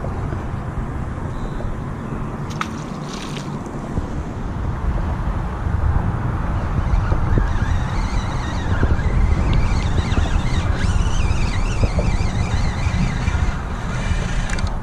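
Wind buffeting the microphone, a steady low rumble throughout. Fainter high, wavering sounds come in over the second half, with a single click early on.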